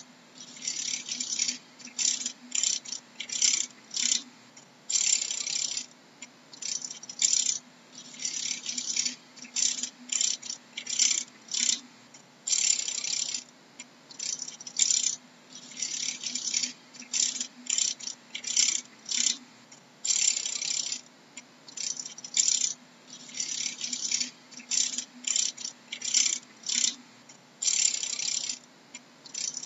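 Dragonfly wings making a dry, crackling rattle in irregular bursts, from a fraction of a second to about a second long, with short gaps between them. A faint steady hum runs underneath.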